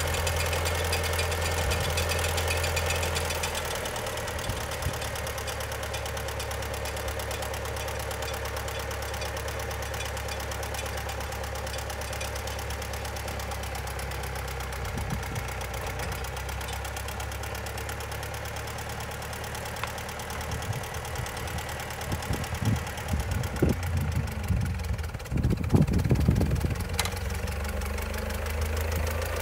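Massey-Ferguson MF 85 tractor engine running steadily, a little louder for the first three seconds and then settling to an even idle. Irregular low thumps come in over the last several seconds.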